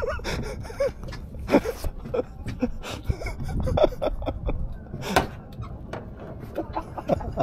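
Background noise on a fishing boat: a steady low rumble with scattered short knocks and clicks, and faint distant voices now and then.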